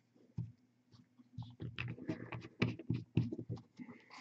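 A single knock, then a quick, irregular run of small clicks and taps from small objects being handled on a painting desk, over a low steady hum.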